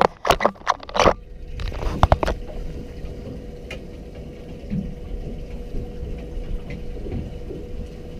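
A quick run of sharp knocks and clatter from handling on a fiberglass boat, with two or three more about two seconds in. After that comes a steady low rumble of wind and water with a faint steady hum.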